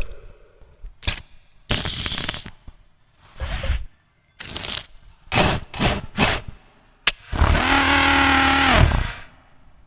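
A human beatboxer imitating a run of sound effects with his mouth: sharp clicks, short hissing and breathy bursts, and a quick sound with a falling whistle. Near the end comes a long, loud buzzing tone held for about a second and a half, dropping in pitch as it stops.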